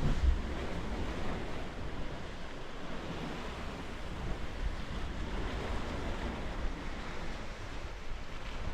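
Sea surf washing steadily, with wind rumbling on the microphone; a low bump on the microphone right at the start.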